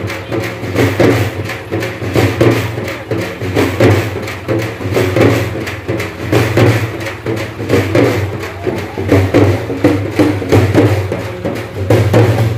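Loud music with a strong, steady percussive beat.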